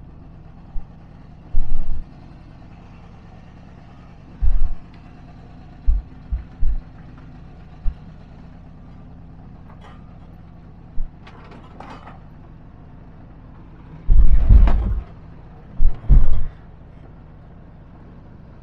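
Volkswagen Kombi van driving slowly over a rough cobbled and dirt lane, heard from inside the cab: a steady low engine hum broken by sudden loud low thumps and knocks as the van jolts over bumps. The heaviest cluster of thumps comes about three-quarters of the way through.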